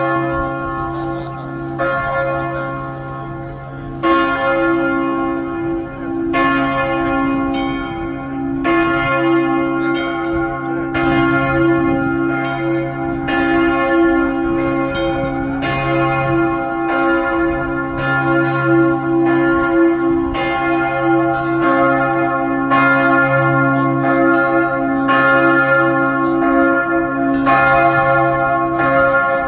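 Several church bells pealing together, strokes of different pitch falling about every one to two seconds and overlapping, with deep hum tones ringing on between strikes.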